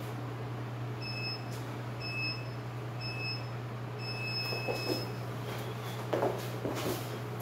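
Digital gym interval timer beeping a start countdown: three short beeps a second apart, then one longer start beep. Near the end come a few thumps as a person drops to the rubber floor mats into a burpee, over a steady low hum.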